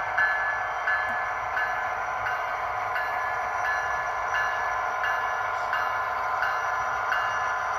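Model diesel-hauled passenger train running past, its locomotive bell ringing steadily about once every two-thirds of a second over the train's continuous running sound.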